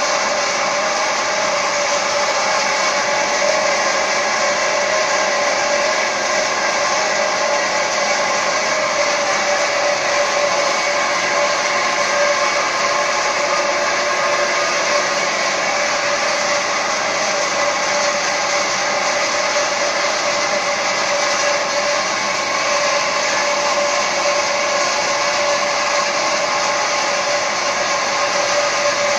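Model ETOOR3 3-ton-per-day peanut-oil refinery running: a steady machine whir with a constant hum in it, even and unchanging.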